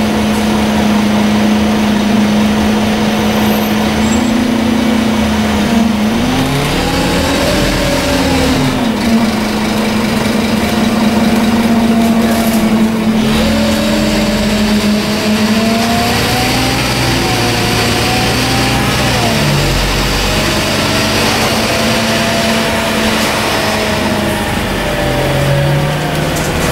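Scania N230UD double-decker bus's nine-litre five-cylinder diesel engine heard from inside the passenger saloon, pulling away and accelerating, its pitch rising and dropping back several times as it goes up through the gears, over a steady hum.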